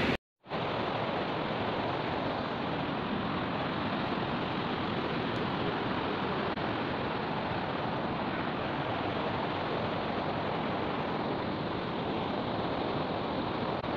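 Steady rushing of a fast mountain river flowing over rocks, an even, unbroken sound of water.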